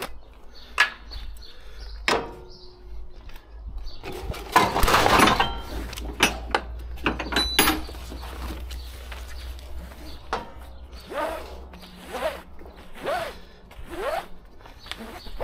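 Ratchet tie-down straps being worked by hand: metal clicks and clacks of the ratchet buckles and hooks, and short zipping sounds of the webbing pulled through the buckle, several in a row near the end.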